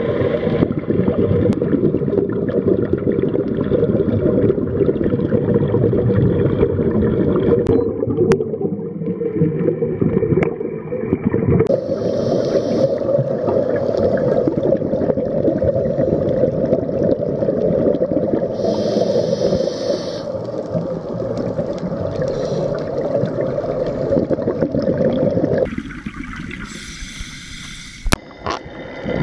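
Muffled underwater sound of scuba diving: a steady low rush, with bursts of regulator exhaust bubbles gurgling now and then. The rush drops away briefly near the end, with a couple of clicks.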